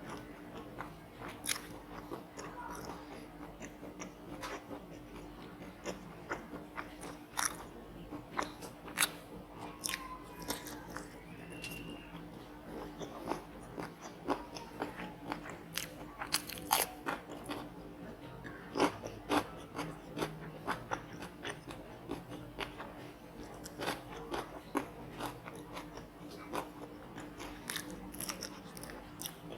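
Close-miked biting and chewing of crisp batter-fried squid, with many sharp crunches throughout, over a steady low hum.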